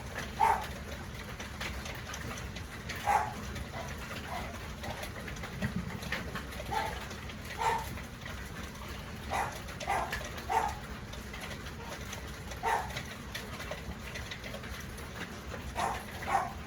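Hailstones striking a window pane in irregular knocks, about a dozen, some in quick pairs, over a steady hiss of heavy rain.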